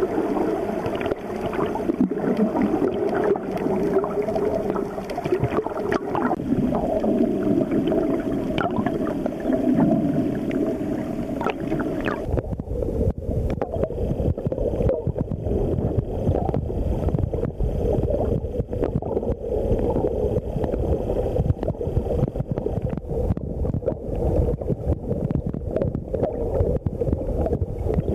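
Underwater sound picked up by a snorkeler's camera: a muffled, rumbling wash of water with scattered clicks and a steady low tone. About twelve seconds in it changes abruptly to a noisier, deeper rumble.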